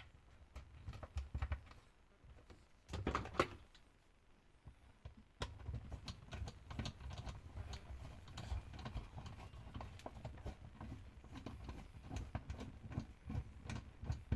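Small clicks, taps and rattles of parts and bolts being handled while a new part is fitted into a washing machine, with a louder rattle about three seconds in.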